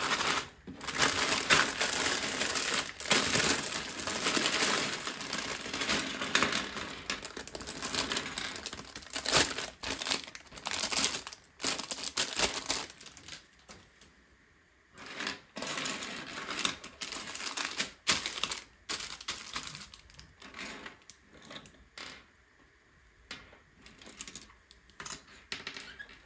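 LEGO pieces being handled: small hard plastic parts clattering and clicking, with rustling like a plastic parts bag. It is busy and dense for the first half, then turns to sparser single clicks.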